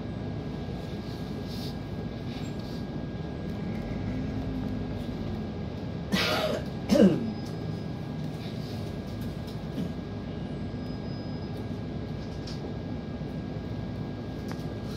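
Steady city street noise from traffic. About six seconds in, a person clears their throat and coughs, two short sounds close together and the loudest thing heard.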